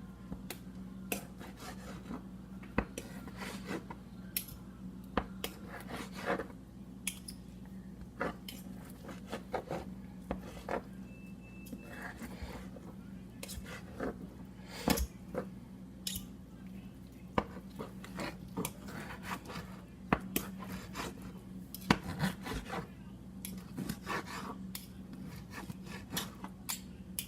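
Knife and fork cutting up seared chicken thighs: irregular clicks and scrapes of metal cutlery against the dish, over a steady low hum.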